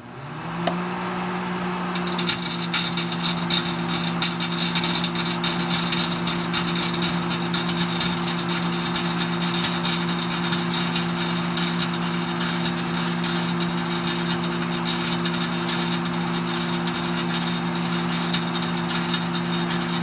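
Microwave oven starting up: its hum rises briefly, then holds steady. From about two seconds in, a dense crackling comes from a dead 6SK7 vacuum tube arcing and burning inside. The tube has lost its vacuum, so it gives more fire than glow.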